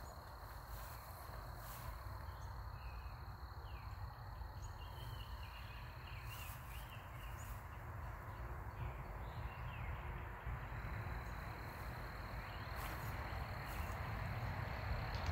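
Outdoor garden ambience: a thin, steady high-pitched trill that stops about six seconds in and returns about ten seconds in, a few faint short chirps, and a low rumble with a few soft knocks on the microphone.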